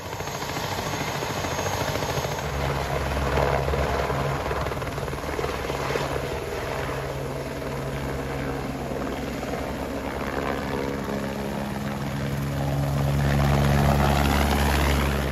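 Light single-rotor helicopter hovering and then climbing away with a supply load slung beneath it: a steady beat of rotor blades and the whine of its turbine. The sound grows louder about four fifths of the way in as it passes overhead.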